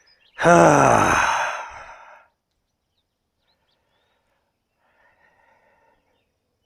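A man's loud, exasperated sigh, voiced and falling in pitch, fading out over about two seconds: disappointment at a log found too rotten to mill.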